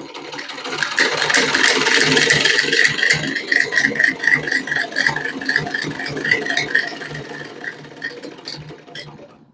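Old sewing machine running and stitching cloth, a rhythmic clatter of quick needle strokes that builds up in the first second and slowly winds down near the end. Its lower mechanism has just been tightened; the rattle that remains comes from one still-loose part, as the tailor diagnoses it.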